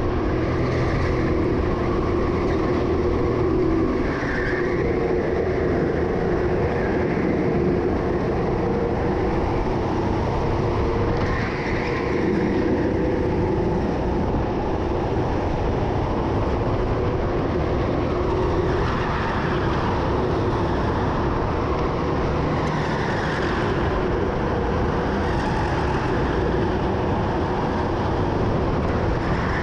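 Racing go-kart engine running continuously on track, heard from the driver's seat, its note rising and falling every few seconds with the throttle.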